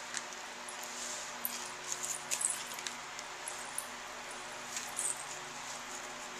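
Dry hydrangea petals and leaves being spread and pressed by hand onto paper: light rustling with scattered small crackles, most of them in the middle and again near the end, over a faint steady hum.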